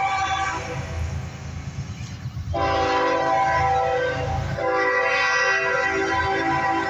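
Locomotive air horn sounding a chord in separate blasts for a grade crossing. One blast ends just after the start, a second begins about two and a half seconds in, and a third follows right after it near the middle and carries on.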